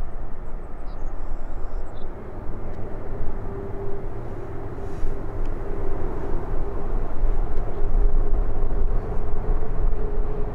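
Airbus A380's four Rolls-Royce Trent 900 jet engines at taxi power: a steady rumble, with a faint steady whine that comes in about three seconds in.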